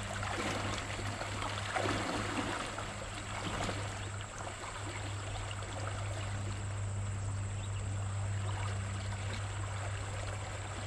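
Steady rush of a swift-flowing river, with a low steady hum underneath.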